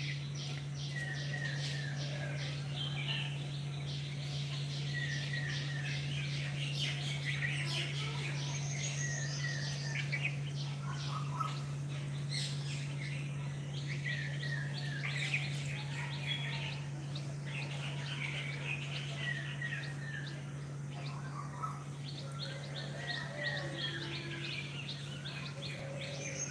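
Many small birds chirping and calling in short, overlapping twitters, over a steady low hum.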